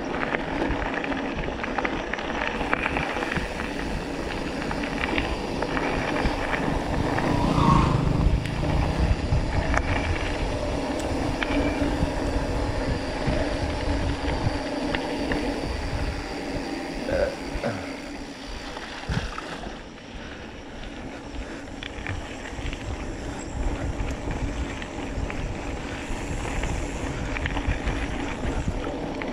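Mountain bike rolling fast over a gravel dirt road: tyres crunching on loose stones, the bike rattling over bumps, and a constant low rumble, louder for a moment about eight seconds in.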